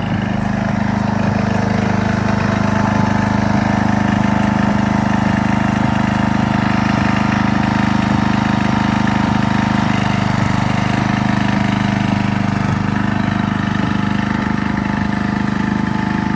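An engine running steadily at an even pitch, without revving.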